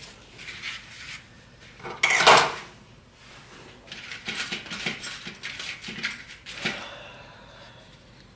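Small metal tools clinking and clattering on a workbench during soldering work: one loud clatter about two seconds in, then a run of quick light clinks.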